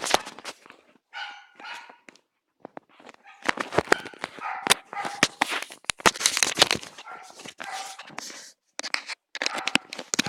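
A dog barking and yipping over and over in short calls, mixed with many sharp clicks and knocks.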